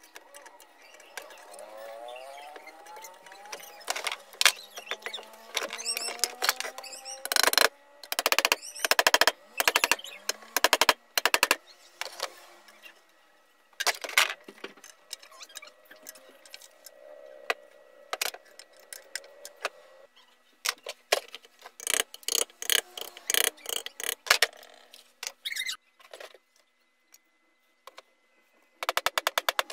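Irregular clicks, knocks and clatter of an electric hand planer's plastic housing and metal parts being handled and fitted together during reassembly, with dense runs of knocks about a third of the way in and again after the midpoint.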